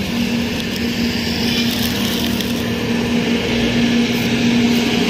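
Road traffic noise: a motor vehicle engine running with a steady low hum over a constant wash of traffic.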